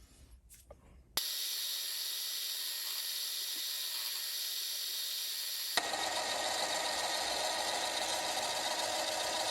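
Mini lathe running, a steady mechanical whine with hiss, starting abruptly about a second in and shifting to a fuller, lower tone about six seconds in.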